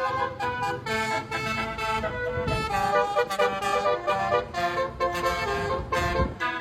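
Basuri bus horn (telolet-style multi-tone horn) playing a melody of quickly changing notes. A low rumble swells twice beneath it.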